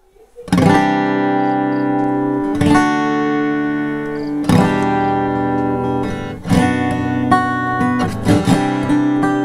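Baton Rouge AR31C/ACE cutaway acoustic guitar with a solid cedar top, played with the fingers: full chords struck and left to ring, a new chord about every two seconds, with quicker strokes near the end. It starts about half a second in.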